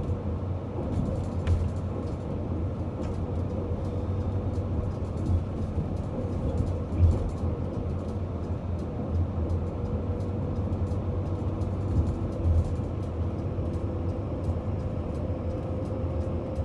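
Steady low rumble of a moving vehicle, with a faint steady hum and a few light bumps, the biggest about seven seconds in.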